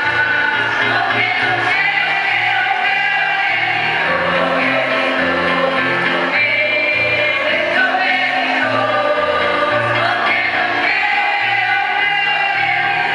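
A choir singing, with sustained notes and a moving low bass line under the voices, without a break.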